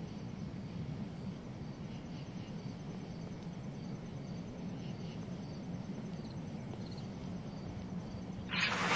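Quiet, steady background hiss and hum with faint high chirps now and then. A louder sound swells in near the end.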